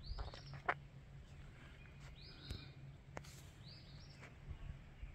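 Faint bird song outdoors: short, sweeping high notes, often two in quick succession, repeating every second or two over a low steady rumble.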